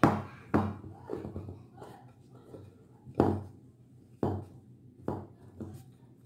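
Hands punching down risen yeast dough in a ceramic bowl, knocking the air out: a series of about eight irregular thumps and knocks, the bowl shifting against the countertop.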